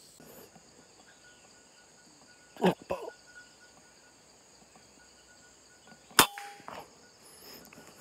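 A PCP air rifle fires twice, two sharp cracks about three and a half seconds apart, the second the louder, over a steady high drone of forest insects.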